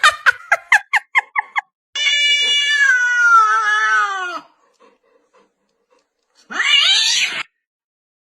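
A cat meowing: a quick run of short meows, about five or six a second, then one long drawn-out meow that falls in pitch at its end, and a single short meow near the end.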